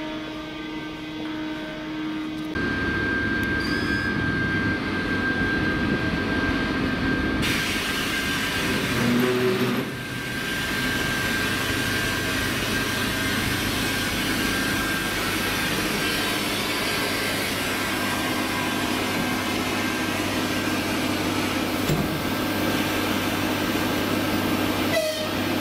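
TEP70BS diesel locomotive standing and idling close by: its 16-cylinder diesel engine makes a steady hum with a thin, steady high whine. The sound grows louder about two and a half seconds in and then holds steady.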